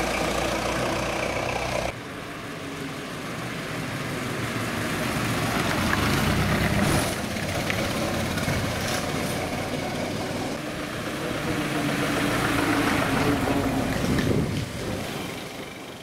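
Vintage Ford Model T cars driving along a road, engines running with road noise. The sound changes abruptly about two seconds in, swells and eases twice, and fades out at the end.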